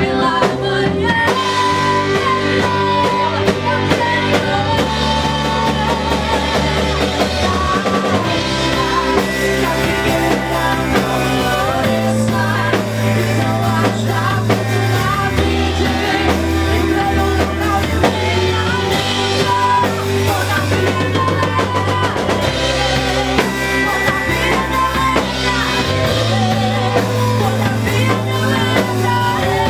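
A live worship band playing a song: drum kit, bass and guitar with a singer.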